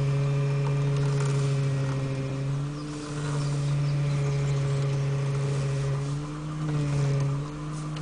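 Mitsubishi Lancer 9 steering rack humming: a steady low drone with overtones that eases off and shifts slightly in pitch a few times.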